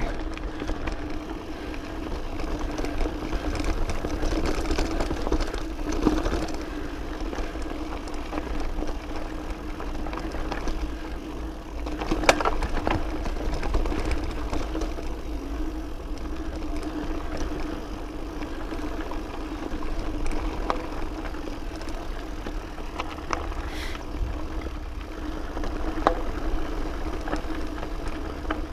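Specialized Camber Comp 650b full-suspension mountain bike rolling along a dirt trail: a steady whir and low rumble of tyres and drivetrain, with scattered knocks and rattles as it rolls over rocks, the loudest about twelve seconds in.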